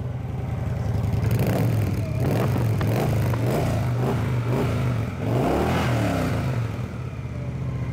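2000 Victory Sport Cruiser's 92-cubic-inch V-twin idling and revved several times, the revs rising and falling from about a second in, then settling back to idle near the end. It sounds healthy and runs well.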